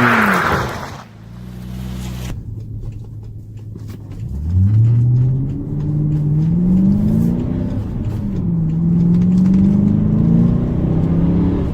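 Car engine running under acceleration: a falling note fades out in the first second, then about four seconds in the engine note climbs steadily, drops back near eight seconds and settles into a steady pull.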